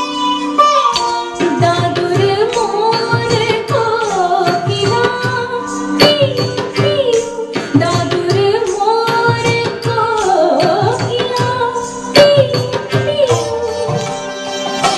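Indian classical dance music: a gliding melody, with singing, over regular hand-drum strokes.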